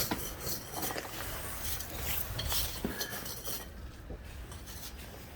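Light metal clinks and scrapes of hand tools being worked, in scattered short knocks.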